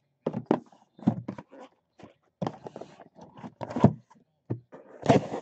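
Cardboard shipping box being opened by hand: a run of irregular scrapes, rips and knocks as the packing tape and flaps are worked at.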